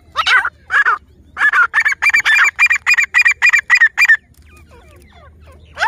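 Grey francolin calling: two separate notes, then a fast, even run of about ten notes at roughly four a second that stops about four seconds in. A falling call begins right at the end.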